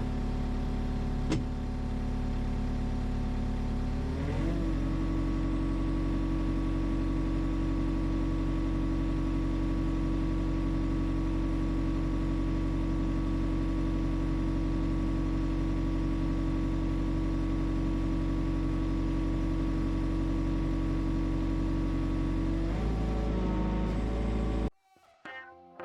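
A vehicle engine running steadily, speeding up about four seconds in and holding there, then easing back down near the end. It cuts off abruptly, and a few musical notes follow.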